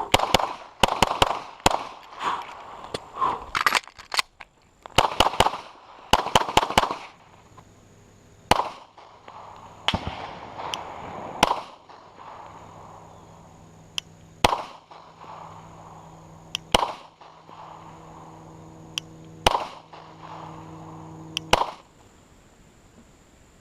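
9mm Glock 17 pistol fitted with an S3F Solutions threaded stainless barrel being fired with 115 grain MagTech ammunition: quick strings of shots in the first seven seconds, then single shots every couple of seconds, each with a short echo.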